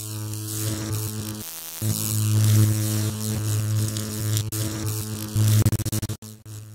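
Electrical buzzing and crackling sound effect: a loud, steady hum with a hissing, crackling top. It cuts out briefly about a second and a half in, then stutters rapidly on and off near the end like a flickering arc, and carries on quieter.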